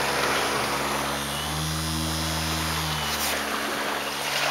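24 V electric trolling motor, run from two 90 W solar panels with its propeller out of the water, giving a steady whirring hum. Its pitch shifts about a second and a half in and settles back about three seconds in: the motor's speed follows the power coming from the panels, and it slows when they are shaded.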